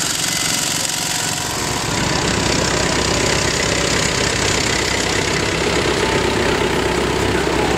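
Vintage tractor engine running at a slow, steady pace as the tractor drives past close by. It gets louder about two seconds in as a red International tractor comes near.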